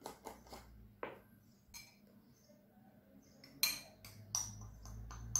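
A metal spoon clinking against glass as a thick sugar-and-cocoa body scrub is spooned from a glass bowl into a glass jar: a scatter of separate clinks, the sharpest and most ringing one about three and a half seconds in.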